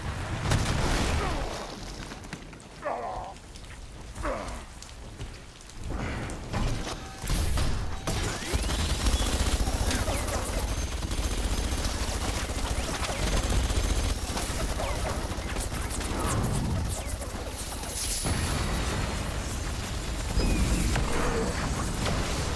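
Action-film sound effects of gunfire and explosions. A scatter of sharp hits fills the first few seconds; from about eight seconds in comes a dense, unbroken wash of blasts over a deep rumble.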